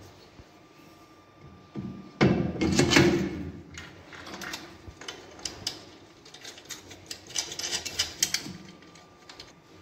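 Hands handling a glass-plate flow apparatus and fitting knobs onto its metal studs: a loud clattering knock about two seconds in, then a run of small clicks and taps.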